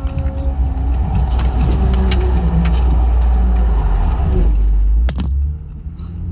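Steady low rumble of a car heard from inside the cabin in traffic, with a couple of sharp clicks about five seconds in as the phone is handled, after which the rumble drops.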